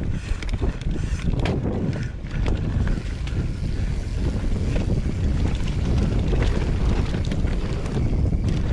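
Wind buffeting an action camera's microphone over the rumble of a YT Capra mountain bike's tyres rolling down a dirt trail, with scattered clicks and rattles from the bike over bumps.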